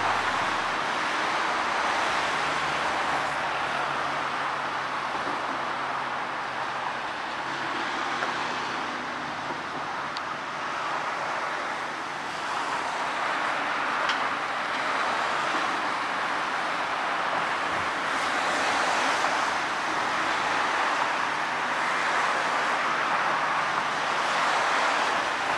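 Steady road traffic noise, with a low engine hum of passing vehicles that swells and fades a few times.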